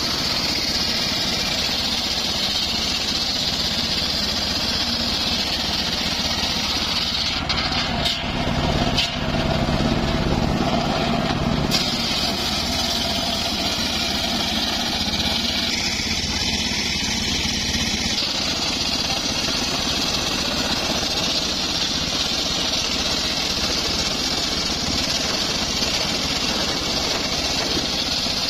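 Homemade engine-driven circular sawmill running, its large blade ripping lengthwise through a teak log in a continuous loud whine of engine and cutting. The sound dips briefly twice about eight and nine seconds in.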